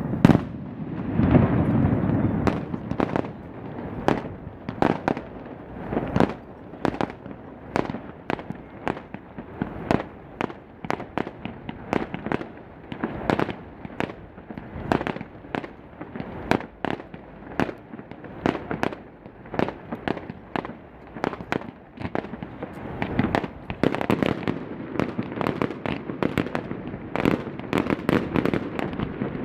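Fireworks display: a rapid, irregular run of bangs and crackling pops, several a second, with heavier clusters at the start and again near the end.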